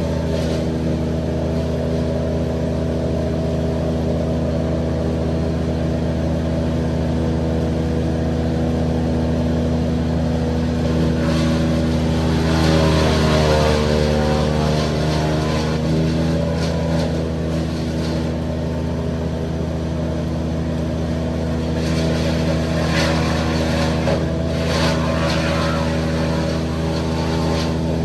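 An engine running steadily, its pitch shifting briefly about halfway through before settling again.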